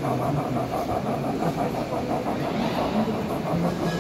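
Large-scale model steam locomotive running slowly along its track, with a fast, even, rhythmic chuffing over a steady mechanical hum.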